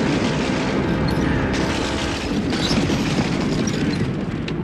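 Cartoon sound effect of thunder rumbling, a dense, sustained noise that follows a lightning strike.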